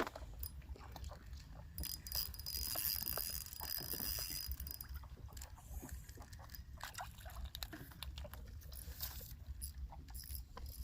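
Boat-side ambience on a fishing boat: a steady low rumble with water sloshing and scattered small clicks and knocks, and a hiss for a few seconds starting about two seconds in.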